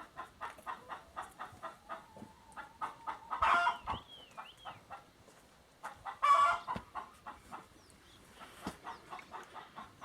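Common starling singing: a long run of rapid clicking notes, about five a second, broken by three louder harsh chattering calls and a couple of wavering, falling whistles.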